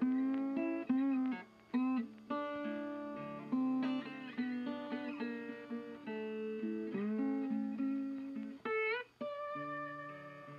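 Background music on guitar: a run of single plucked notes, some of them bent in pitch.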